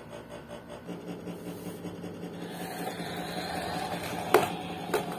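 Toy Chevrolet Camaro SS car driving across a wooden floor, its small motor and gears whirring steadily with the wheels rolling. Two sharp knocks come near the end.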